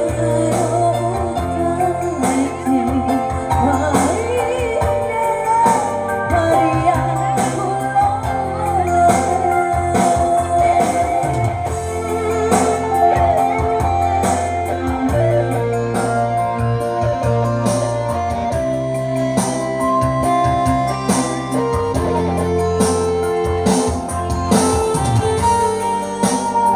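A live Bugis song played through a PA: a woman sings with vibrato over electronic keyboard accompaniment with a steady bass. About halfway through her voice drops out and the keyboard carries an instrumental passage.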